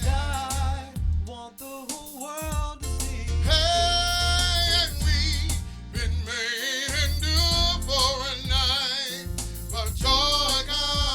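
Gospel song with a singer holding long, wavering notes and vocal runs over a band with a steady bass line.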